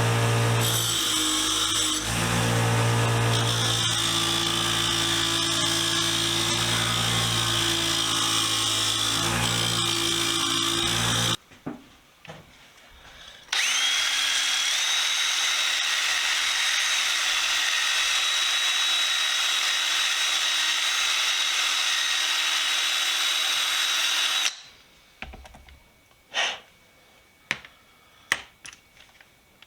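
Belt sander running steadily while steel screwdriver shafts are sanded clean. It stops briefly about eleven seconds in, then runs again with a steady whine. It stops about 25 seconds in, and a few light clicks and knocks follow.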